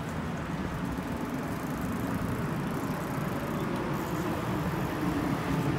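Steady rumble of city street traffic, with no distinct events standing out.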